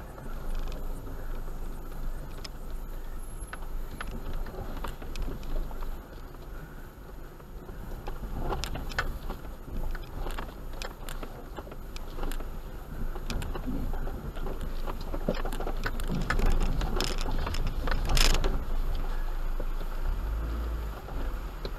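Suzuki Grand Vitara 4WD crawling slowly over a rocky creek bed, heard from inside the cabin: a steady low engine rumble under frequent knocks, clicks and rattles from the tyres on stones and the body jolting. The knocks grow busier and louder about halfway through, with the heaviest a few seconds before the end.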